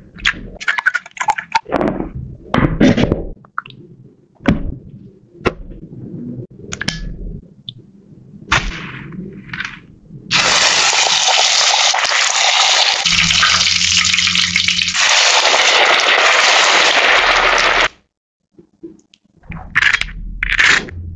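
Chicken cutlet being pressed into dry breadcrumbs, with short crunchy rustles. About ten seconds in it is lowered into hot frying oil and the oil sizzles loudly and steadily for about eight seconds, then cuts off suddenly. A few crisp crunches follow near the end.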